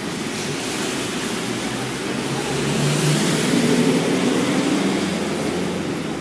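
Street traffic on a wet road: steady tyre hiss from passing cars, with a large truck's engine hum building as it passes close, loudest a little past halfway, then fading.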